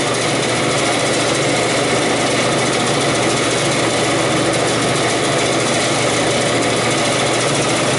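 Walk-in cooler evaporator fans running: a steady rush of air with a low mechanical hum, unbroken throughout.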